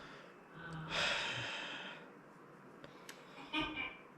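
A person lets out a long, breathy sigh beginning about half a second in and fading out over roughly a second and a half.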